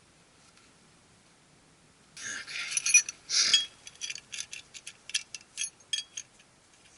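Steel tie-rod adjuster clamps and their bolts being handled and slipped onto the steering linkage sleeves: a scraping metal rattle starting about two seconds in, then a run of sharp, separate clinks.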